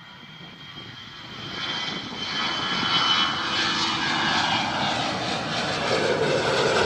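Airplane engine sound effect, growing louder over the first few seconds as if the plane is approaching, then holding steady and cutting off suddenly near the end.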